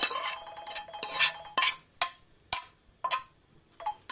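Metal spoon scraping and knocking against a metal pan while cooked oatmeal is scraped out of it: a string of sharp clinks, about one every half second, some with a short metallic ring.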